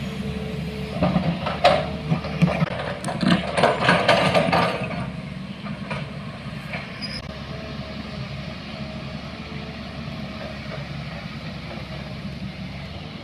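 A motor vehicle's engine running steadily, with a string of clanks and rattles over the first five seconds that then settle into an even drone.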